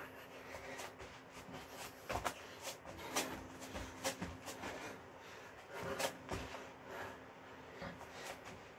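Burpees on a foam exercise mat: irregular dull thuds of sneakers landing and hands planting on the mat, about one every second, over a steady low hum.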